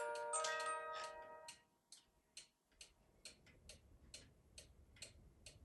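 Music box of a 1970s Anton Schneider cuckoo clock playing the last notes of its tune, which stops about a second and a half in; then the clock's mechanical movement ticks steadily, a little over two ticks a second.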